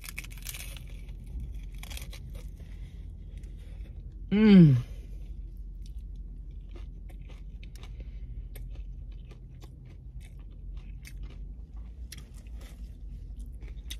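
Crunching bites into a hard-shell corn taco, then chewing with small scattered crackles. About four and a half seconds in, a short loud hum falling in pitch from the eater.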